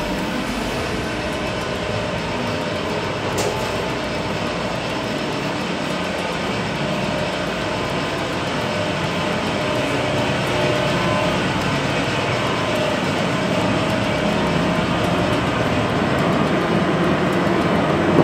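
Steady drone of a ship's engine and ventilation machinery, getting slightly louder about halfway through, with one faint click a few seconds in.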